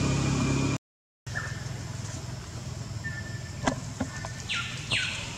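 A steady hum with a thin high tone cuts off abruptly under a second in. After a short silence comes outdoor ambience with brief high chirps, a couple of sharp clicks, and two quick high calls near the end that fall in pitch, from animals.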